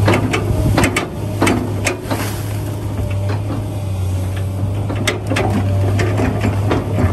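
A steady low motor hum with irregular clicks and knocks over it.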